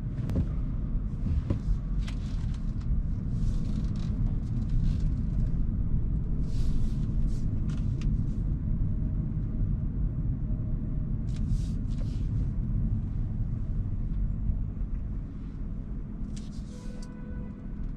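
Hyundai Kona Hybrid driving on the road: a steady low rumble of road and tyre noise, with short hissing swishes several times. The rumble eases a little near the end.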